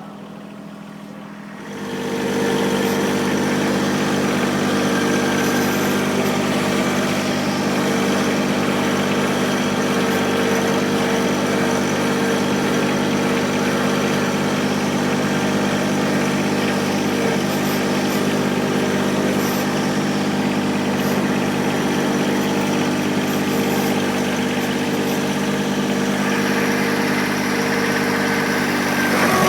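John Deere 1023E compact tractor's three-cylinder diesel engine running, brought up from a lower speed to a steady higher speed about two seconds in and held there.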